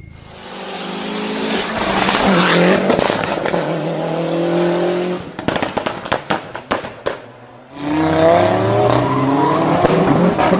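A performance car's engine revving hard, rising and falling in pitch, then a rapid string of sharp exhaust pops and bangs from about five seconds in, before it revs up again near the end.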